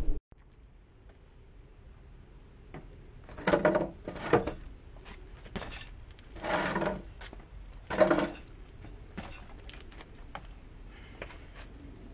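A handful of separate clunks and rattles of parts being handled on a Honda XR70 pit bike as the gas tank is put back on.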